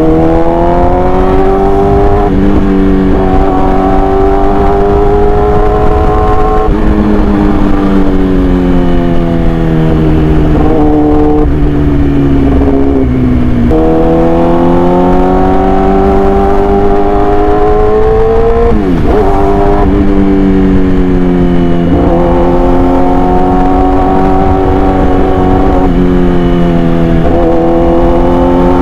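Yamaha R6 inline-four sport bike engine running through an SC Project aftermarket exhaust, loud and continuous, its pitch climbing and falling in long sweeps with short breaks every few seconds where the gears change.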